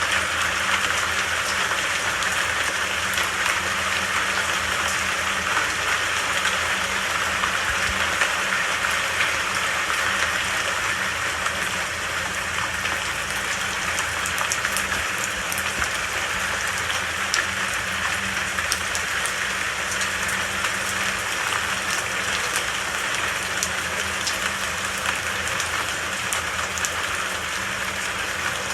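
Steady rain falling, with scattered drop ticks.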